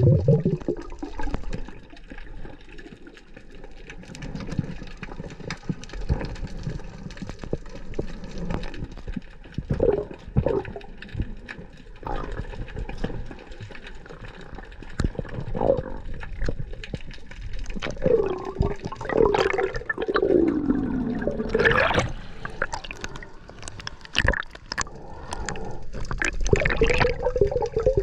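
Sea water sloshing and bubbling around a snorkeller's camera, with irregular knocks and gurgles, busier in the second half.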